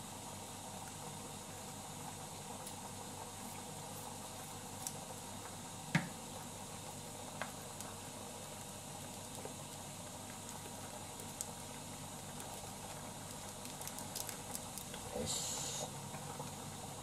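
Water simmering in a saucepan, a steady bubbling hiss, with a few small clicks and crinkles as instant-soup sachets are handled and torn open. A brief papery rustle near the end.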